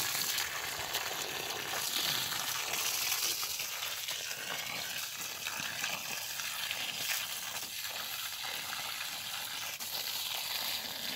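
A steady stream of water from a garden hose splashing onto the soil in grow bags, a continuous hissing splash.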